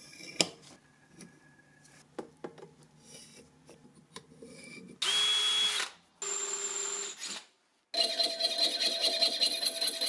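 Light taps and clicks of hand tools on metal, then an electric drill boring into a metal bar held in a vise. The drill runs in two short spells of about a second each, a steady whine over the cutting noise. From about eight seconds a louder, continuous, rhythmic sound takes over.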